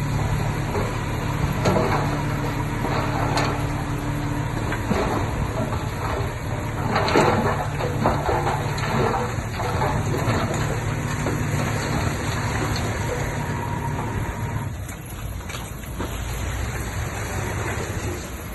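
Heavy diesel earthmoving machinery running steadily, with scattered metallic clanks and knocks from the working machine. The engine note eases off for a while about two-thirds of the way in.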